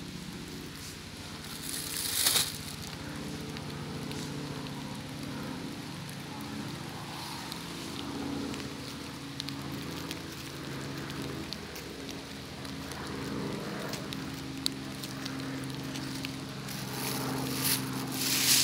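Dry leaf litter and twigs rustling and crackling as hands pick through fallen sweet chestnuts and their spiny husks, with louder rustling bursts about two seconds in and near the end. A steady low drone runs underneath.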